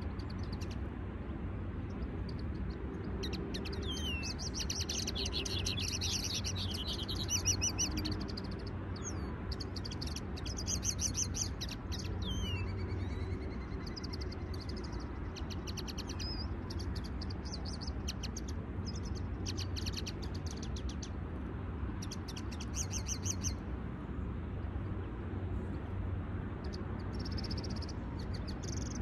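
Caged contest finches, among them a linnet hybrid, singing in runs of rapid high twittering a few seconds long with short pauses between. A steady low rumble runs underneath.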